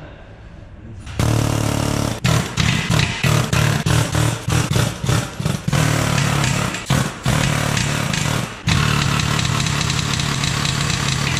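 Pneumatic impact wrench hammering on front suspension bolts in several long bursts with brief pauses, starting about a second in.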